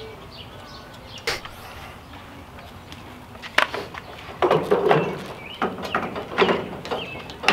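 Metal clicks and clanks of a string trimmer being lifted onto and seated in a metal Equipment Defender trimmer rack: a sharp click about a second in and another a couple of seconds later, then a run of knocks and clatter as the trimmer shaft settles into the rack's clamps.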